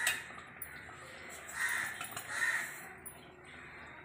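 Harsh, cawing bird calls, about three within a few seconds.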